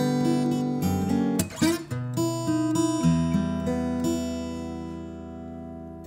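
Seagull Artist Series Mosaic QII acoustic guitar being played: picked notes and a quick strum, then a chord left ringing and slowly fading over the last few seconds.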